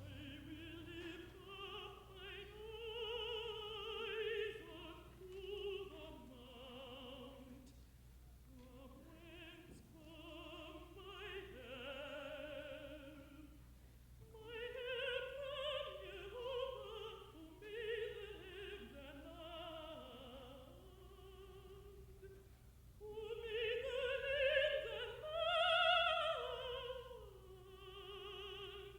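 Contralto singing long, slow phrases with a short break now and then, the loudest phrase near the end, over quiet orchestra, on an old broadcast recording with a steady low hum.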